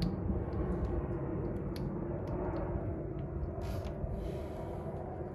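Scattered light clicks and taps of hands handling parts and wiring connectors in a diesel engine bay, over a steady low background rumble.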